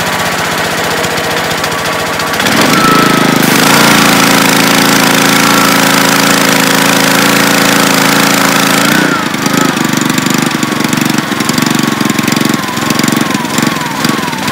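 Honda-powered pressure washer running, with its engine settling into the lower, uneven note of the low-idle kickdown near the end. About two and a half seconds in the engine comes up under load, and from about three and a half to nine seconds a dense hiss of water spraying runs over it, cutting off suddenly.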